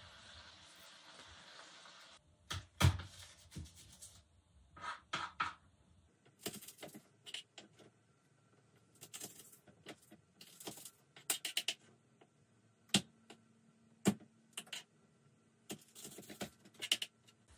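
A steady hiss that cuts off about two seconds in, then scattered clicks, taps and knocks of things being handled and set down. The loudest is a thump about three seconds in, with sharp clicks near the middle and a quick cluster near the end.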